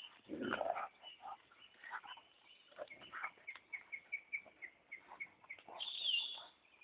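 Rottweiler chewing and gnawing on a large wooden stick, with short woody clicks and knocks; a louder, lower sound from the dog about half a second in.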